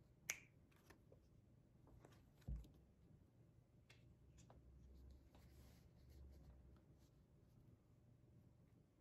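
Quiet handling of a deck of playing cards: a sharp card snap about a third of a second in, and a soft thud about two and a half seconds in as the deck is set down on the cloth close-up mat. Light clicks and a faint sliding rustle of cards follow.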